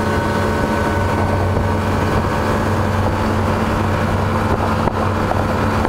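Motorboat engine running at a steady pitch as the boat is under way, over a constant rushing noise.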